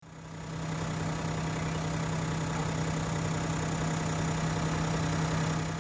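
Toyota Land Cruiser engine idling with a steady hum, fading in over the first second and out at the end.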